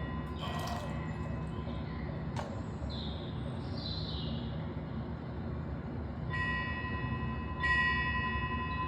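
A small bell rings twice, about six and seven and a half seconds in, each strike ringing on with clear overtones, over a steady low rumble of background noise. A faint click and a couple of short gliding chirps come a few seconds in.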